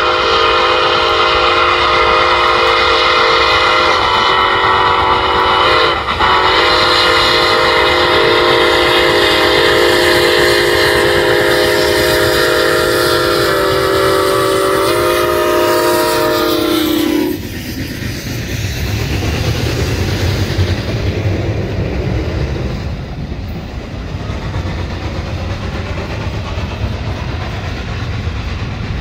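Milwaukee Road 261's steam whistle blowing a long chord of several notes at once, broken briefly about six seconds in and cutting off about seventeen seconds in. After that the passenger cars roll past with a steady rumble and clickety-clack on the rails.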